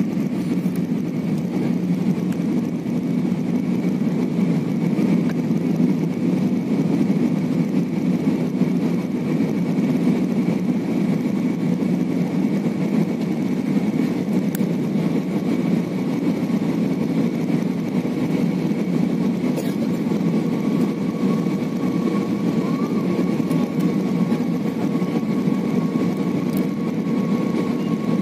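Steady drone of a jet airliner's engines and rushing air, heard inside the passenger cabin, with a thin steady whine running through it. A second, lower whine joins about two-thirds of the way in.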